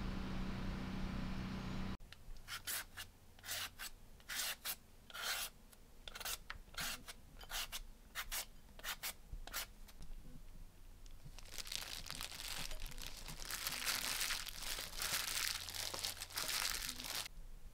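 Green papaya being shredded with a hand shredder: a run of short scraping strokes, one or two a second, then several seconds of plastic crinkling and rustling over the bowl.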